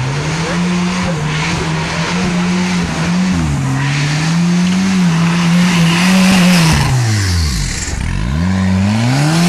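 Off-road race buggy engine running at steady high revs with small dips in pitch. About seven seconds in, the revs drop away steeply, then climb again near the end.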